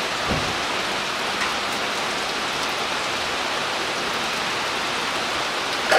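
Steady rain falling, an even hiss with no separate drops or breaks.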